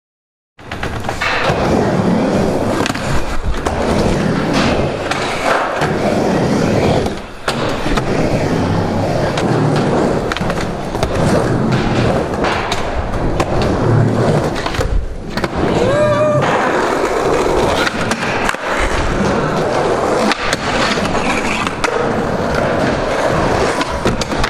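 Skateboard wheels rolling over wooden ramps, with repeated clacks of the board and trucks striking the ramp and landing.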